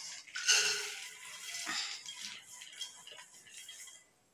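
Sprouted green gram poured from a plastic container into an aluminium pressure-cooker pot, the damp sprouts spilling against the metal with a faint ringing from the pot. It starts sharply about half a second in and dies away near the end.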